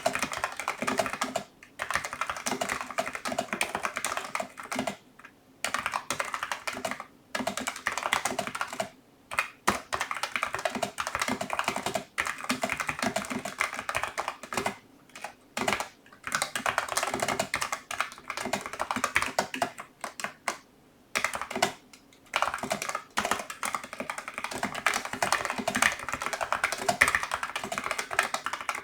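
Typing on a Logitech MX Mechanical Mini keyboard with tactile brown mechanical switches: rapid runs of keystroke clicks in bursts of a few seconds, broken by short pauses.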